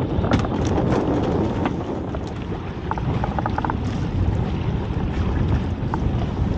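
Wind buffeting the microphone on a small open boat, with choppy water against the hull. A quick run of light clicks about three seconds in.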